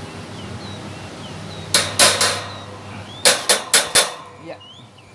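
The locking clips of a stand fan's front grille being tapped into place by hand: a couple of sharp knocks about two seconds in, then four quick knocks a second later.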